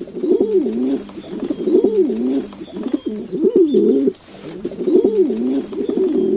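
Pigeon cooing: about four warbling coo phrases, each a second or so long, with short gaps between them.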